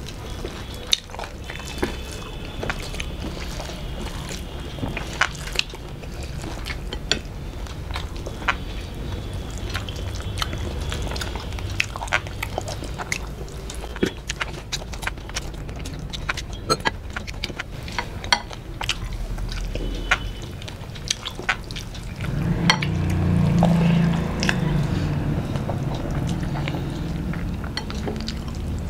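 Close-up eating sounds: wet smacking and chewing of mouthfuls, and fingers squelching rice into curry gravy, with many small sharp clicks. About three-quarters of the way through there is a brief louder low sound.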